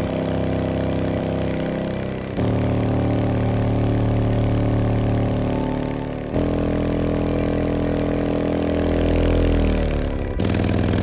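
A Ground Zero GZHW 12 XSPL 12-inch subwoofer playing music free-air, with no enclosure, driven by a stereo amplifier. It holds sustained bass notes that change about every four seconds.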